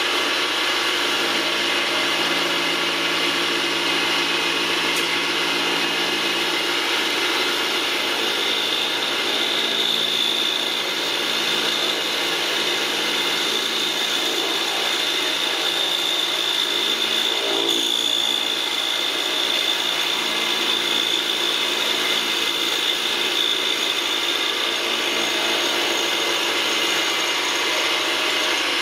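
Milling machine running, its slot drill cutting down the brass screw heads in a Hart-Parr tractor carburettor: a steady machine whirr with a thin high tone from the cut that comes in about a third of the way through and fades out near the end.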